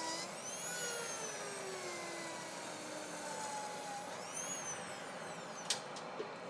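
Low-speed dental handpiece fitted with a cutting burr, running as it trims a thermoformed Erkodur 2.0 tray on a stone model; its whine slowly falls and rises in pitch as it cuts. A sharp tick comes near the end.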